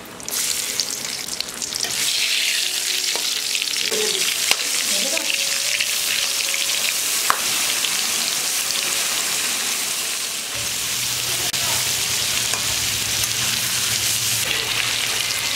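Nigella seeds and green chillies sizzling in hot oil in a pan, a steady frying hiss that swells over the first couple of seconds.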